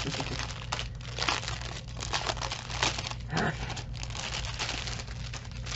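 Clear plastic packaging crinkling and rustling in irregular bursts as small bags of diamond-painting drills are pulled out and handled.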